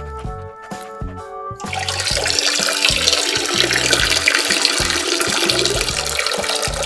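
A loud rush of running water, like a toilet flushing, starts about a second and a half in and keeps going, over background music with a steady beat.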